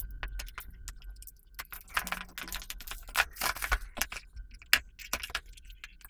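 A snap-off utility knife slitting the seal of a cardboard phone box, then the box being opened and handled: a run of irregular light clicks and crackles.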